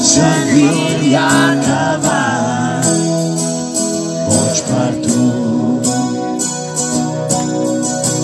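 Live acoustic music: a voice singing over strummed acoustic guitar, the singing stopping about five seconds in while the guitar plays on.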